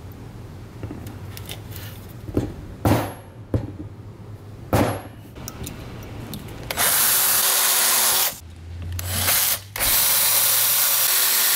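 Cordless battery drill boring a small port hole into the cast iron cylinder wall of a refrigeration compressor. After a few knocks, the drill starts about seven seconds in and runs at a steady pitch. It stops briefly about halfway through the run, then starts again.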